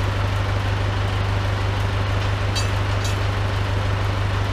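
International 574 tractor engine idling steadily. Two light metallic clinks come a little past halfway as the three-point hitch is worked on.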